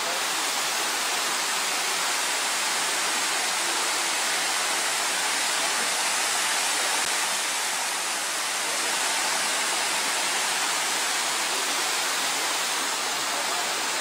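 Water cascading down a rocky waterfall into a pool, a steady rush with no change in level.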